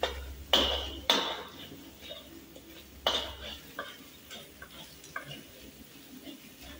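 Metal spatula scraping and knocking against a black metal wok during stir-frying. Three loud ringing clanks come in the first few seconds, then lighter scrapes and taps.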